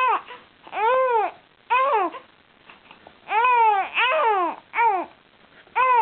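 A young baby's voice: about seven short fussy cries, each rising and falling in pitch, the longest about halfway through.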